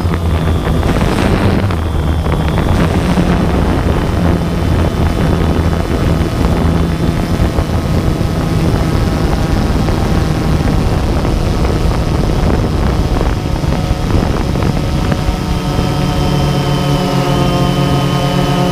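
Multirotor drone's motors and propellers whining steadily, heard through its own onboard camera with wind noise on the microphone; the motor tone changes about fifteen seconds in.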